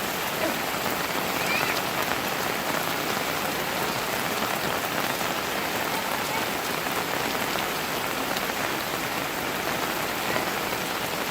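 Steady rain falling and splashing: a shower that is easing off.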